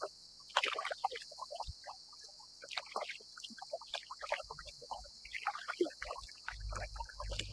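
Small waves lapping and slapping against a plastic kayak hull, a string of irregular little plops and splashes, over a steady high hiss. A low rumble comes in about six seconds in.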